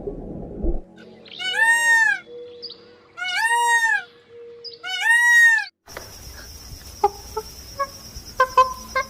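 An animal calling three times, each a high cry just under a second long that rises and then falls in pitch, spaced about a second and a half apart. After a cut, a steady high whine follows with scattered faint clicks and chirps.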